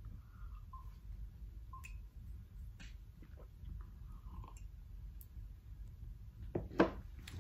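Faint scattered clicks and taps in a small room, with two louder clicks close together near the end.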